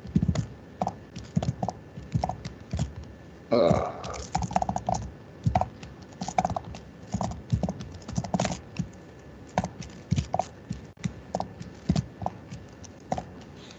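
Typing on a computer keyboard: irregular keystroke clicks, a few a second, as a line of C code is entered. A brief vocal sound breaks in about four seconds in.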